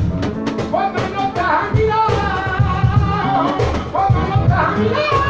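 Live flamenco singing: a male voice draws out long, wavering melismatic lines over a band with a drum kit beating steadily underneath.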